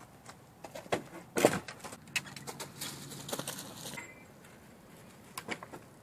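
Thuds and crunching steps of a person moving and landing on wood chips and dry leaves, with one loud thud about a second and a half in and a few more knocks near the end.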